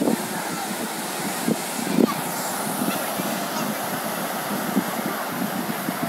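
Sea surf breaking on a beach, a steady wash of noise with wind on the microphone, under the chatter of a beach crowd. A few short, sharp calls or honks stand out in the first two seconds.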